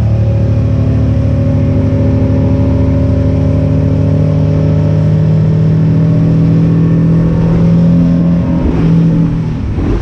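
Boat engine running steadily under way, then easing off about nine seconds in.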